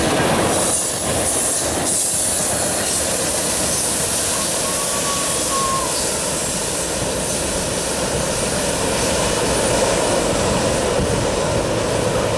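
Freight train tank cars and covered coil cars rolling past on a curve, a steady rumble of steel wheels on the rails, with a short faint squeal about five seconds in.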